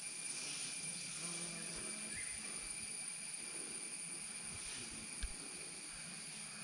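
Quiet outdoor ambience with a faint, steady high insect chirring and a single soft knock about five seconds in.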